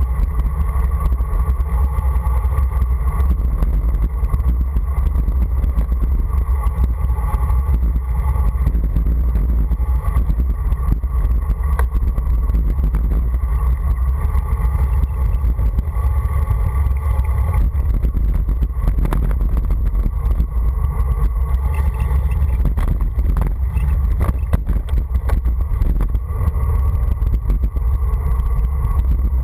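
Steady wind buffeting on the microphone, with the rumble of tyres rolling over patched asphalt during a fast downhill run.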